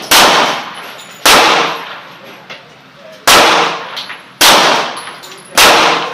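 Glock 20 pistol firing 10mm Auto 180-grain factory rounds. Five shots, one to two seconds apart, each a sharp report with a short tail of echo.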